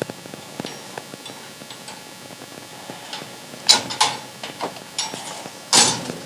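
Scattered clicks and knocks from a pigeon cage being handled as a young pigeon is put back inside, with two louder rattling clatters, one a little past halfway and one near the end.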